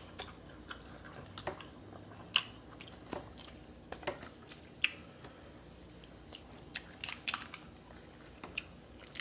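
Close-miked eating of seafood: chewing and biting, with scattered sharp clicks and cracks.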